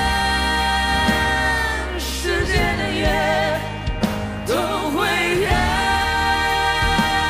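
A woman and a man singing a pop ballad duet over a band with a deep, steady bass. They hold long high notes with vibrato, break briefly about four seconds in, then glide up into the next held phrase.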